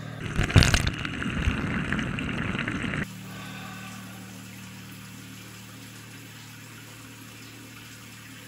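Water splashing loudly into a bathroom sink for about three seconds and cutting off abruptly, then a tap running steadily into the sink, quieter.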